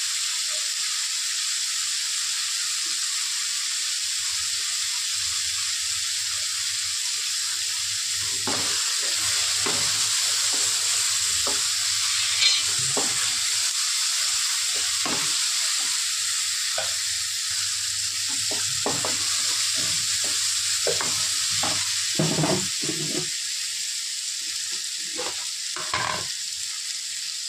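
Sliced onions, tomatoes and green chillies sizzling steadily in hot oil in an aluminium kadai. From about eight seconds in, a wooden spoon scrapes and knocks against the pan as the mixture is stirred.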